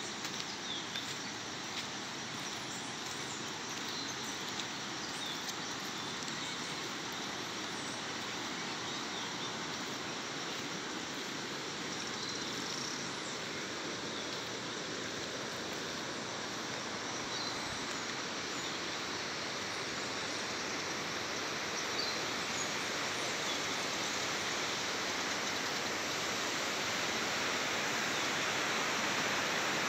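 Steady rush of a river's flowing water, growing gradually louder, with a few faint, short bird chirps now and then.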